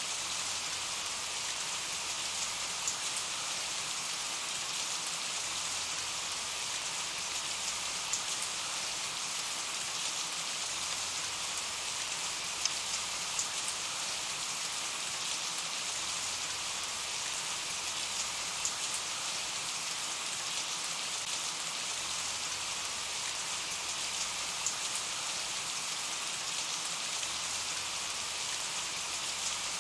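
Steady rain falling, an even hiss with scattered small drop ticks, laid over as a relaxation background track.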